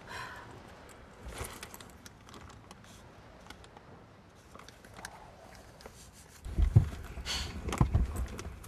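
Small handling clicks and rustles inside a car, then louder rustling with a few low thumps from about two thirds of the way in, as someone shifts about and handles things.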